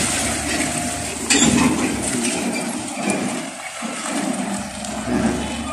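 A tractor-trailer pulls away over gravel with an empty skeletal container chassis. There is metallic clinking and rattling with a sharp click about a second in. The low engine drone fades after about two seconds.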